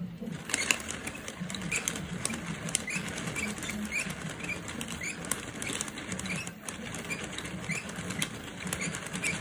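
Hand-cranked 3D-printed plastic flip-book mechanism running: its chain links and gears clatter and the paper cards flip past in a steady stream of quick clicks and patter.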